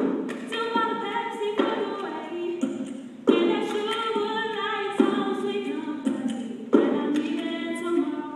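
Large mixed choir singing a cappella, holding full chords that break off and come back in sharply several times.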